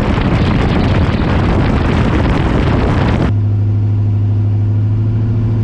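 Turbocharged 5.3 V8 car engine running under load with heavy wind noise on the microphone. About three seconds in, this cuts off abruptly to a steady engine drone at constant pitch.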